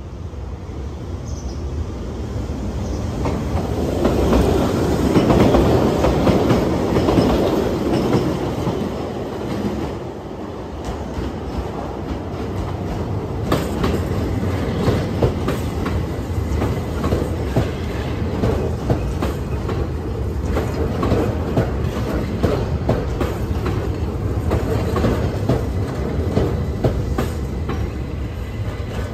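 Keihan Otsu Line train approaching and then rolling slowly past close by, its running noise building to a peak about five to seven seconds in. The noise then turns into a long run of clicks and clatter from the wheels over rail joints and pointwork as the cars pass.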